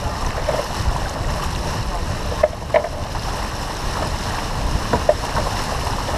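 Wind buffeting the microphone and water rushing along the hull of a sailboat heeled under sail, with a few short sharp clicks, the loudest two about two and a half seconds in.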